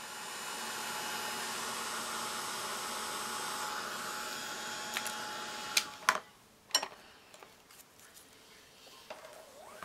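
Handheld hair dryer blowing steadily, then switched off about six seconds in. A few sharp clicks and knocks follow as things are handled and set down on the craft table, then lighter ticks.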